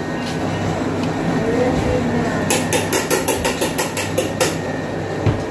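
Commercial kitchen background: a steady low hum and noise, with a run of quick light taps for about two seconds in the middle and faint voices.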